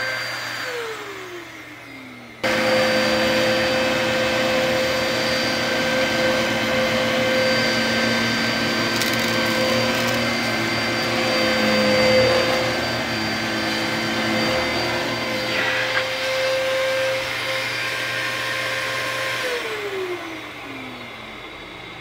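Dyson DC33 upright vacuum cleaner's motor winding down, switched back on about two seconds in and running steadily with a high whine, then switched off near the end, its pitch falling as it spins down.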